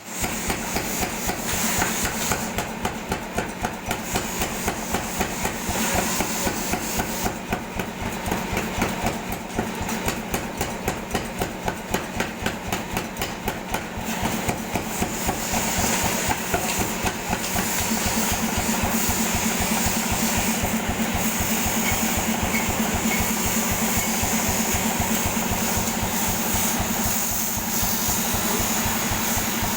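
Air hammer running: rapid, evenly repeated blows with a hiss of air, the louder strokes standing out about twice a second at first. From about halfway through it settles into a more even, continuous rattle.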